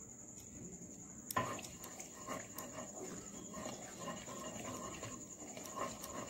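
A wooden spatula knocks once against a non-stick kadai a bit over a second in, then scrapes and swirls oil around the pan in short irregular strokes. A faint steady high whine runs underneath.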